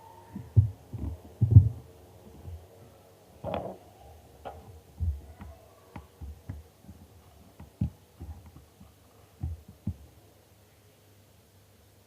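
Hands handling and kneading slime: irregular soft low thumps and squishes, with a brief louder rustle about three and a half seconds in.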